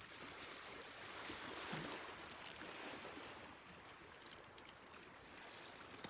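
Faint, steady wash of sea surf, with a single soft click about four seconds in.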